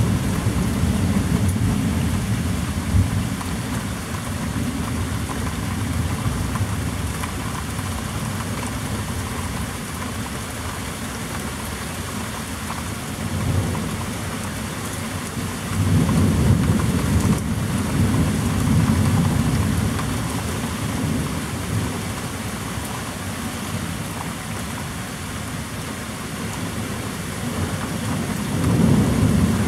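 Heavy rain falling steadily in a thunderstorm, with low rolls of thunder swelling up several times: at the start, about halfway through, and again near the end.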